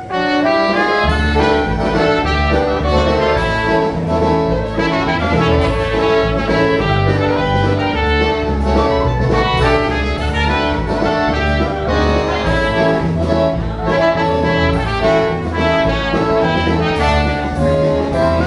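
Live polka band playing a honky-style polka, with accordion, horns and drums over a steady oom-pah bass line that comes in about a second in.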